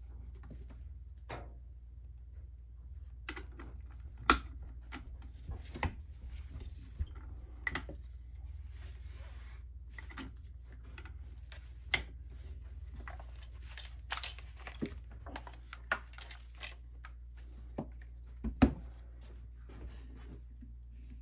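A nylon sling's buckles and hooks and the AK pistol being handled on a padded workbench as the sling is fitted: scattered clicks, rattles and knocks of metal and plastic, the sharpest about four seconds in and a double knock near the end, over a low steady hum.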